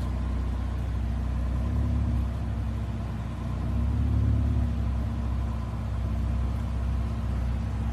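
Car engine running with a steady low rumble, swelling briefly about two seconds in and again about four seconds in.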